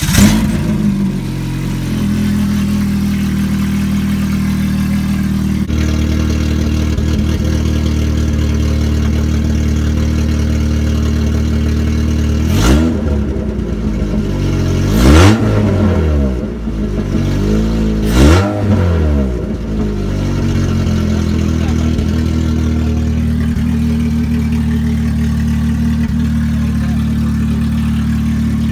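Mitsubishi Eclipse's 2.0-litre DOHC 16-valve four-cylinder (420A) idling just after starting, breathing through a freshly fitted cold-air intake with a cone filter. About halfway through it is blipped three times in quick succession, each rev rising and falling back to idle.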